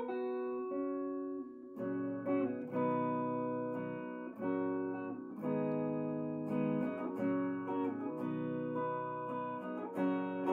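Gibson Les Paul electric guitar played with a clean tone: picked chords, a new one struck about every second and each left to ring into the next.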